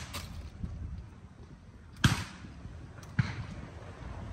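Two shotgun shots about a second apart, each with a short echo, with fainter sharp clicks at the start.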